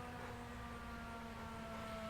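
Tornado warning siren winding down, heard faintly: a steady whine that falls slowly in pitch as its test sounding ends.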